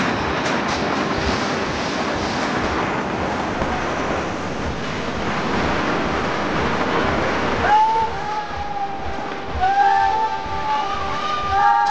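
Steady rushing noise, like wind buffeting the microphone and a moving vehicle's rumble. About eight seconds in, high drawn-out voice-like notes come in over it, each gliding up at its start.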